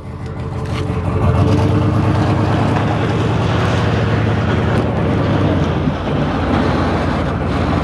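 Pickup truck engine pulling away with a towed jet ski, over a steady rumble of rolling on asphalt; the sound builds over the first second and a half, then holds steady.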